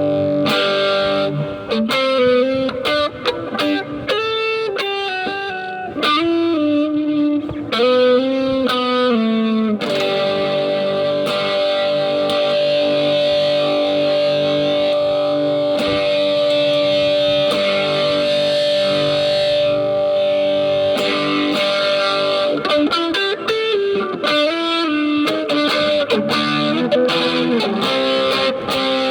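Distorted electric guitar played through effects: fast single-note melodic runs, then one long sustained note held for about ten seconds, then more quick phrases near the end.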